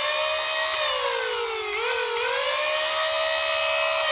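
Nerf Stryfe's flywheel motors spinning with the rev trigger held: a steady electric whine whose pitch sags slightly, dips briefly just under two seconds in, and starts to fall at the very end as the motors begin to spin down.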